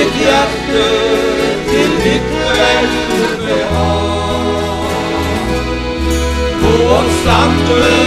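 Live gospel band music: two acoustic guitars, an electric bass guitar and an accordion, with men's voices singing over a steady bass line.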